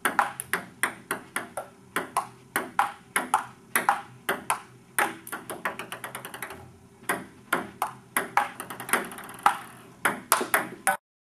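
Table tennis rally: the plastic ball clicking sharply off the paddles and the table in a quick back-and-forth, about two to three hits a second. Twice a rapid run of smaller, quickening bounces breaks in, and the sound cuts off suddenly near the end.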